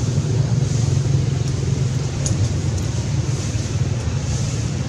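Steady low rumbling noise with a hiss over it, even throughout, with no distinct events.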